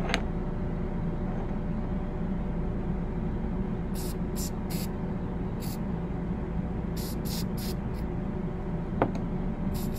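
Aerosol bore-cleaner can sprayed into a revolver barrel in short hissing bursts: three quick sprays about four seconds in, one more near six, three more around seven, and a longer spray starting near the end, over a steady low hum.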